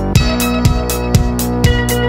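Background electronic music with a steady beat, about two beats a second, over sustained notes.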